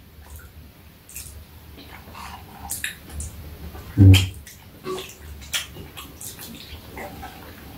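Metal spoon and chopsticks clicking and scraping against a stainless steel bowl while picking at a soft cheese pancake, with soft wet eating sounds. A short, louder low sound, like a brief hum from a mouth, comes about four seconds in.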